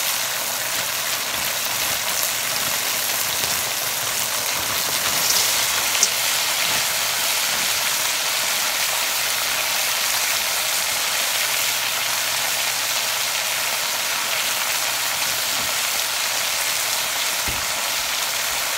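Food sizzling steadily in a hot wok over high heat: chicken strips first, then frozen mixed vegetables hissing and steaming once they are tipped in from frozen. A single sharp click about six seconds in.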